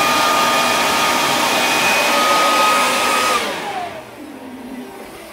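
Handheld electric air blower running at full speed, a loud rush of air with a steady high whine. About three and a half seconds in it is switched off, and the whine falls in pitch as the motor spins down.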